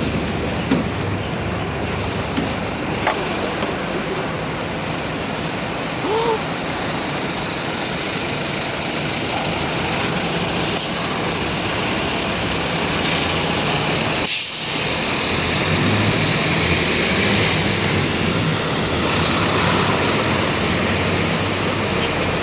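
Mercedes-Benz OF-1721 city bus heard from inside, its diesel engine running steadily, with a short hiss of air-brake release about fourteen seconds in.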